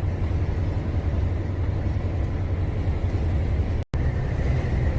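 Truck engine and road noise heard from inside the cab while cruising, a steady low rumble; the truck, a gas–diesel dual-fuel rig, is now running on diesel. The sound cuts out for a split second near the end.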